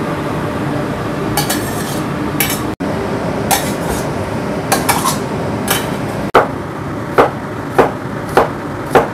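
A metal ladle stirring and tossing cabbage in a stainless steel pan, clinking and scraping against the metal now and then over a steady hiss. About six seconds in this gives way to a broad kitchen knife chopping through carrot onto a cutting board in steady strokes, a little under two a second.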